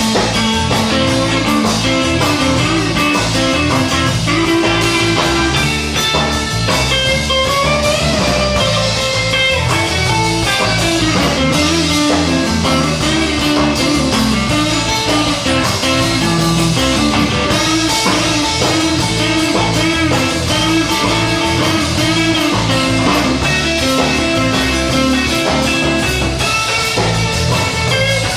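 Live blues band playing an instrumental break between verses: a guitar lead over a drum kit, with no singing.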